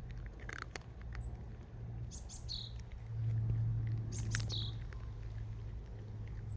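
A small bird chirping: a short, high call that falls in pitch, repeated about every two seconds, over a steady low hum.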